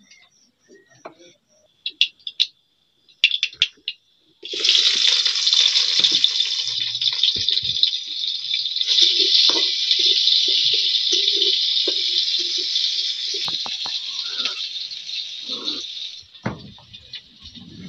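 Sliced onions sizzling loudly in hot oil in a steel kadai, starting suddenly about four seconds in after a few faint crackles of the heating oil, and easing off near the end, with light knocks of the pan and hand.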